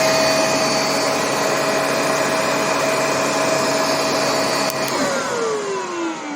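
Hoover HMC510UV handheld mattress vacuum cleaner running steadily with a whine, then a click near the end, after which the motor winds down, its whine falling in pitch.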